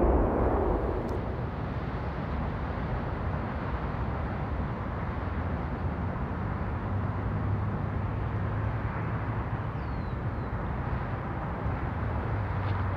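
Steady rumbling background ambience with a low hum and hiss, with no distinct events.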